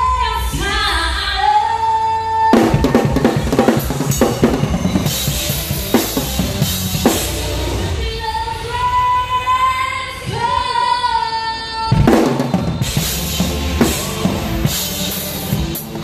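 Live band playing, with the drum kit heard up close: bass drum, snare and Zildjian cymbals, under a sung melody. Cymbal crashes mark drum fills about two and a half seconds in and again about twelve seconds in.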